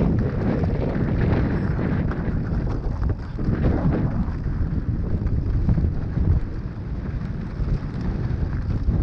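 Wind rumbling on the microphone of a mountain bike ride over a rough dirt trail, with a steady crunch of tyres and scattered knocks and rattles from the bike.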